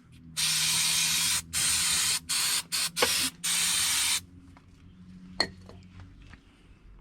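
Aerosol brake cleaner spraying onto a car's lower control arm: a long hiss and then several shorter bursts, stopping about four seconds in. After it come a few light clicks and one sharp tap.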